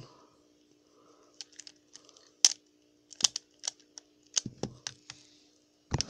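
Plastic clicking of a pyramid-shaped twisty puzzle being turned by hand: a dozen or so separate clicks at an uneven pace, with a faint steady hum underneath.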